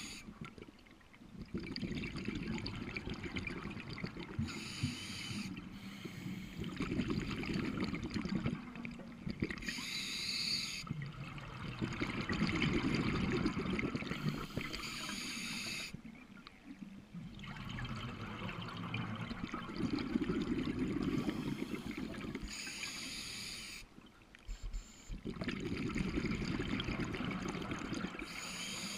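Scuba diver breathing through a regulator underwater: a short hiss with each inhale, then a longer low bubbling gurgle as the exhaled air leaves the regulator as bubbles, repeating in a slow, regular rhythm.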